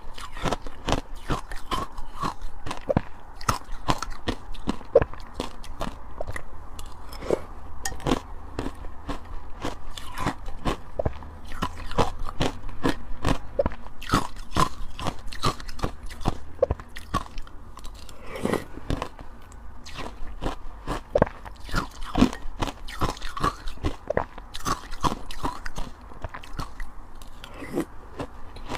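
Ice being bitten and chewed close to the microphone: a steady run of sharp, rapid crunches and cracks, several a second.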